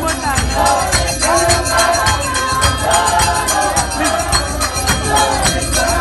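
Church congregation singing together, with a steady percussion beat under the voices.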